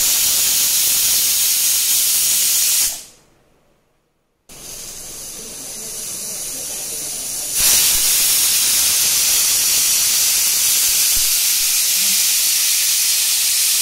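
Stovetop pressure cooker whistling: steam hisses out loudly past the weight valve, stops about three seconds in, then starts again a second later and grows louder partway through. Each whistle is a pressure release, counted to time the cooking.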